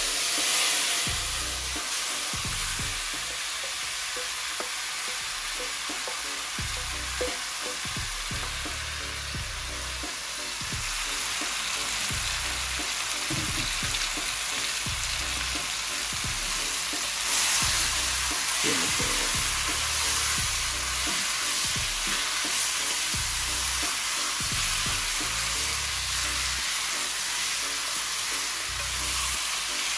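Pieces of chicken back sizzling in hot oil in a pot, a steady frying hiss that starts suddenly as the meat goes in, with the meat being stirred.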